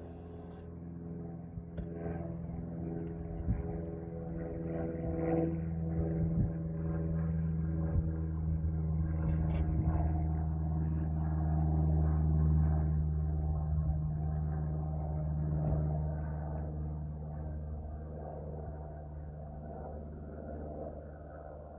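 Red mason bee chewing its way out of its cocoon, with scattered small clicks and pops, under a low steady hum that swells to its loudest about halfway through and then fades.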